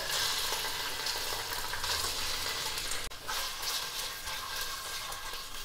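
Paneer cubes sizzling steadily as they shallow-fry in hot oil and ghee, with a spatula stirring them. The sizzle breaks off for an instant about three seconds in.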